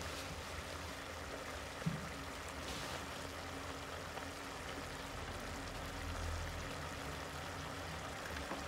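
Papaya pieces braising in sauce in a wok, the liquid simmering with a steady bubbling. A soft knock about two seconds in.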